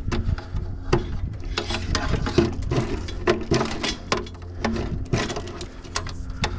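Wiring being cut and pulled out of an air conditioner unit: irregular metallic clicks, snips and scrapes of cutters and wire against sheet metal, over a steady low hum.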